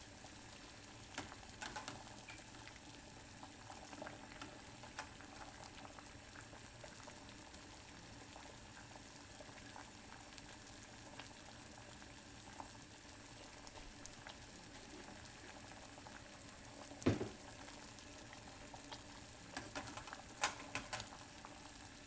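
Saucepan of water at a rolling boil: a steady bubbling hiss, with scattered clicks, a louder knock about 17 seconds in, and a cluster of clicks near the end.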